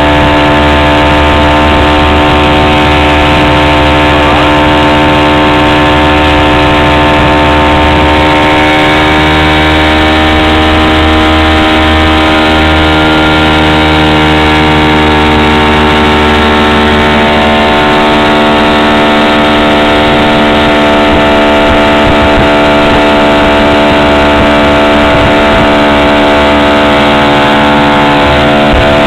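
Motorboat engine running loud and steady at towing speed, its pitch drifting only slightly.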